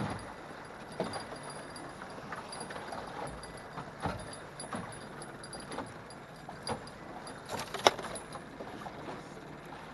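Scattered knocks and clicks of fishing rods and gear being handled in an aluminum jon boat, the sharpest a loud click about eight seconds in, over a steady wash of wind and choppy water.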